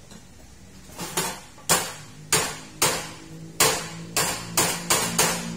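A run of sharp, ringing clanks, about ten in four seconds at an uneven pace, starting about a second in. A low steady hum comes in beneath them.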